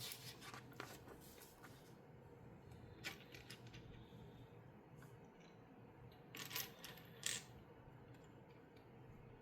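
Small plastic LEGO pieces clicking and rattling as they are handled and pressed together, in a few short clusters of faint clicks over a low steady hum.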